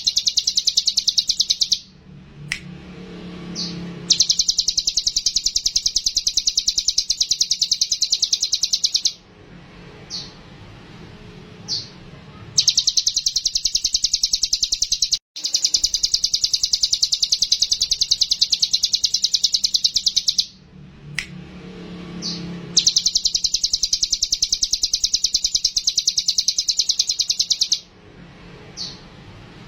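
A ciblek gunung (a mountain prinia) singing in long, very rapid high trills, each running several seconds, with short pauses between them holding a few brief chirps. This is a lure recording of a bird in full song, meant to set other ciblek gunung singing.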